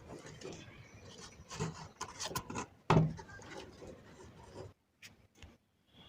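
Scattered rubbing and clicking handling noises of wiring and plug-in connectors being fitted back onto a home theater amplifier board, with one louder knock about three seconds in.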